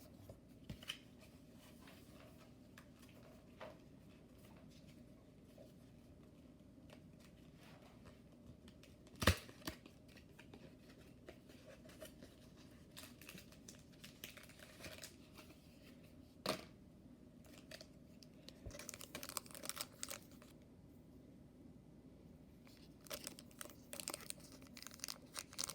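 Foil booster-pack wrapper being handled, crinkling in short bursts that grow busier near the end, with a few sharp taps, the loudest about nine seconds in, over a faint steady low hum.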